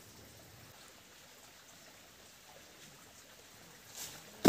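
Faint steady hiss, then a light knock and, near the end, one sharp loud thump as a bundle of flattened cardboard boxes lands on a three-wheeler's metal cargo rack.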